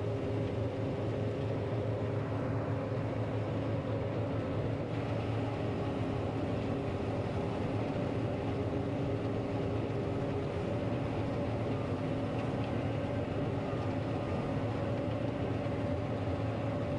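John Deere 9500 combine running steadily while cutting wheat, its engine and threshing machinery a constant hum with a few steady tones, heard from inside the cab.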